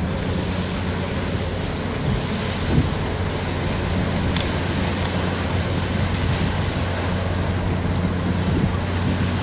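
Steady low drone of a ferry's engine as the boat approaches the landing across open water, over a wash of wind and water noise.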